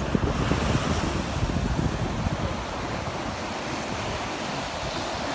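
Wind buffeting the microphone over the steady wash of surf breaking, with the low rumble of the wind strongest in the first half and easing after about three seconds.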